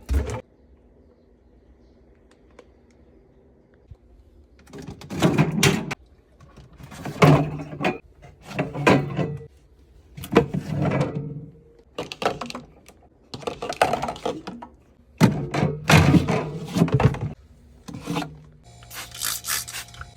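Objects being taken out of and put into a mini fridge during a clean-out: a run of clunks and rustles every second or two that starts about five seconds in, after a quiet stretch.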